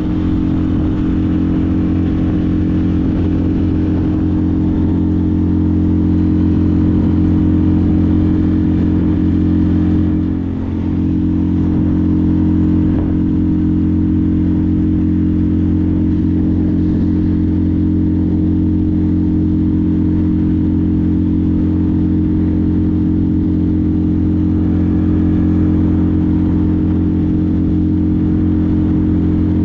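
Small boat's outboard motor running steadily at cruising speed, with a brief dip in level about ten seconds in.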